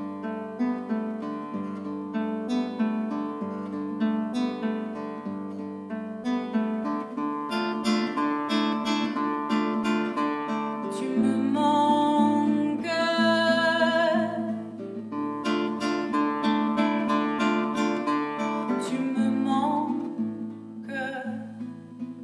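Nylon-string classical guitar played in a steady run of plucked notes. A woman's voice comes in over it about halfway through with long, wavering sung notes, and again briefly near the end.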